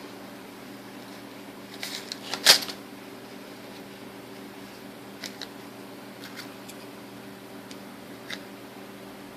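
Small parts of a Shimano Chronarch 101A baitcasting reel clicking and tapping as it is taken apart by hand: a quick cluster of clicks about two seconds in, the loudest about halfway through the third second, then a few lighter clicks later. A steady low hum runs underneath.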